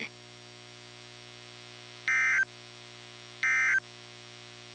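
Emergency Alert System end-of-message data bursts from a NOAA Weather Radio broadcast: two short, buzzy digital tone bursts about 1.3 s apart, with a third starting at the very end. They sound over a steady electrical hum and mark the end of the tornado warning message.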